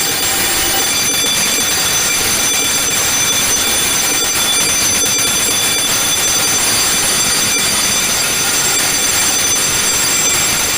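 Fire alarm sounding continuously in a steady, shrill, high-pitched ring with no breaks, set off by test smoke in a smoke detector on an addressable alarm system; it keeps sounding because smoke is still in the detector.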